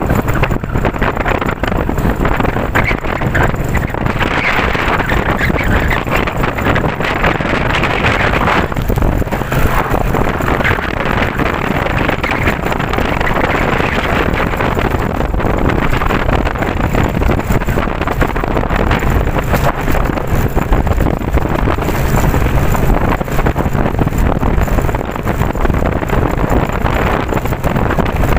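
Strong typhoon wind buffeting the microphone: a loud, continuous rushing noise with a deep rumble underneath, rising and falling a little.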